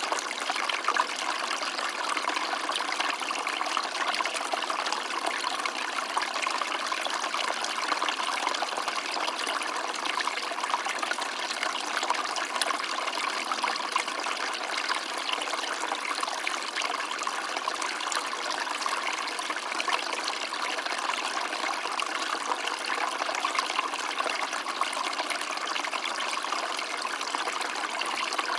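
Small stream of water trickling and babbling steadily over stones, a continuous splashing without pauses.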